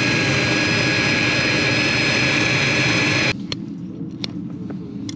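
Loud, steady mechanical running noise with a whine, which cuts off abruptly about three seconds in, leaving a lower hum with a few sharp taps.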